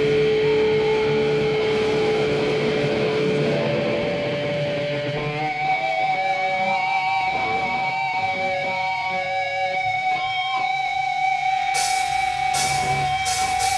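Live heavy metal band: electric guitars holding long sustained feedback tones, the pitch stepping higher about five seconds in. A few cymbal crashes come near the end.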